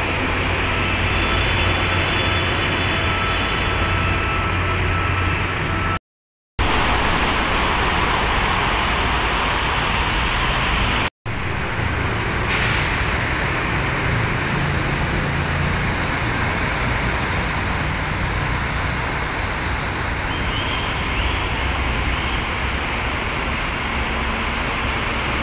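Busy road traffic under an overpass: diesel trucks and cars passing with a steady low engine hum and tyre noise, joined about halfway by a louder hiss as a heavy tractor-trailer goes by. The sound cuts out briefly twice in the first half.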